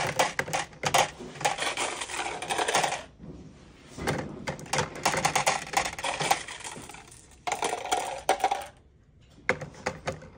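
Marbles clattering as they are dropped by the handful into a plastic cup, in four bursts of rattling with short gaps between. The marbles are loading the counterweight cup of a cardboard pulley lift.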